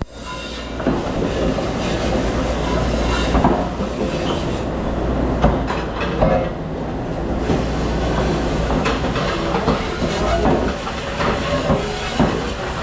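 Dense clatter of dishes, trays and utensils knocking together over a steady rumble of running machinery, typical of a busy commercial dish pit.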